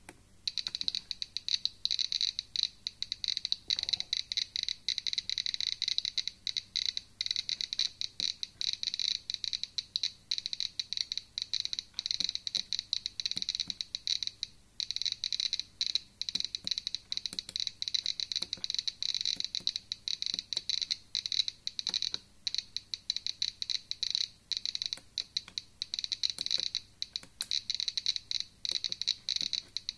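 GK-mini++ DIY Geiger counter with an SBT-10 tube clicking rapidly and irregularly through its buzzer, sharp high-pitched ticks. The count rate is high, around a thousand counts a minute, enough to set off its alarm.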